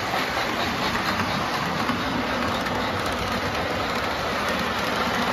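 O-scale model freight cars rolling along the track, a steady rumble of metal wheels on the rails.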